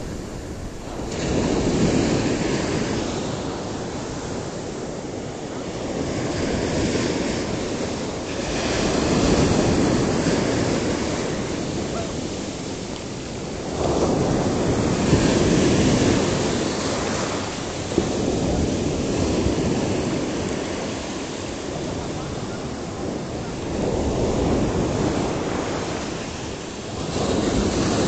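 Small sea waves washing onto a pebble beach, the surf swelling and falling every few seconds, with wind buffeting the microphone.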